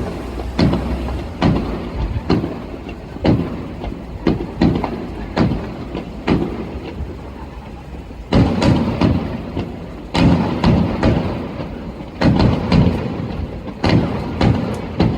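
Fireworks shells bursting in a steady string of booms, about one a second at first, crowding into rapid volleys about eight seconds in and again from about ten seconds on.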